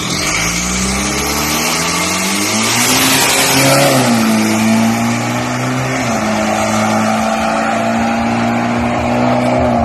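Turbo-diesel SUV drag car launching hard: the engine revs climb steeply with the tyres spinning and hissing for the first few seconds. The engine pitch then drops twice, about four and six seconds in, as it shifts up and pulls away down the strip.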